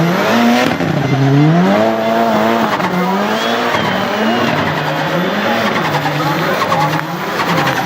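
Turbocharged Nissan 200SX engine revving up and falling back over and over, about once a second, with tyre squeal as the car drifts.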